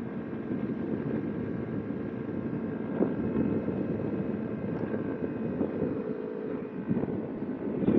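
Kawasaki Ninja 250R's parallel-twin engine running steadily while the bike is ridden, with wind rushing over the microphone. The engine note holds fairly even, with brief louder moments about 3 seconds in and near the end.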